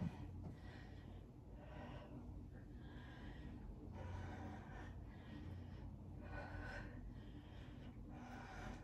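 A person breathing in and out with effort during a one-arm dumbbell overhead press, soft breaths about once a second, over a faint steady low hum.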